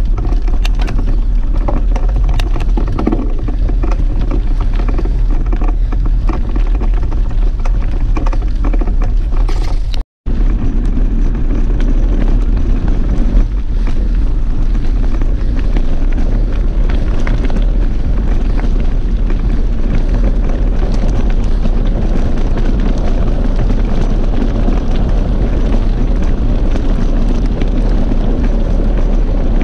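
Wind buffeting an action camera's microphone on a moving mountain bike, a loud low rumble, with tyres crunching over gravel and the bike rattling. The rattle and clatter are busiest before a split-second dropout about ten seconds in; after it the rumble runs steadier.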